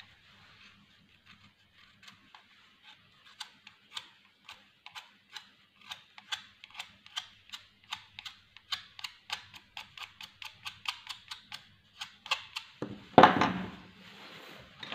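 A pencil being sharpened with a utility knife: short scraping strokes of the blade shaving the wood and lead, sparse at first and then about three a second. A louder rustling knock comes about thirteen seconds in.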